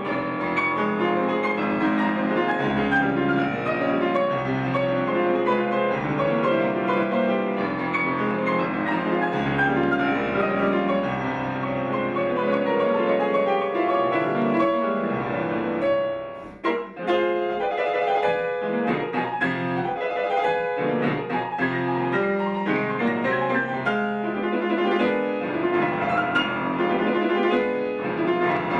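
Grand piano played solo in a fast, virtuosic classical piece: sweeping downward runs, a brief break a little past halfway, then many sharp, loud chords.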